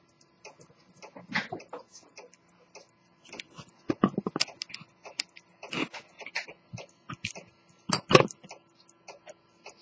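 Circa-1900 Swiss quarter-repeater pocket watch ticking evenly at about five ticks a second. A few louder knocks and rubs come from the watch being handled and set down on a cushion.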